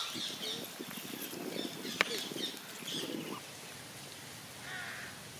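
A wooden spatula stirring and scraping a crab fry in a cooking pot, with one sharp knock about two seconds in. Birds call in the background.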